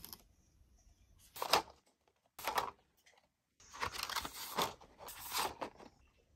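Rustling and scraping as the box and plastic trays of a large Prismacolor Premier colored-pencil set are handled and shifted: a short burst about a second in, another at about two and a half seconds, and a longer stretch of handling noise from about three and a half seconds to near the end.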